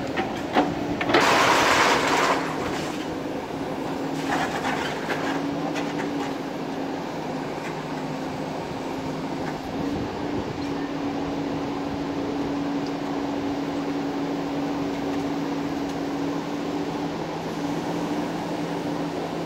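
Diesel engine of a JCB earthmover running steadily at an even pitch. A loud rushing hiss comes about a second in, and a shorter, weaker one at about four seconds.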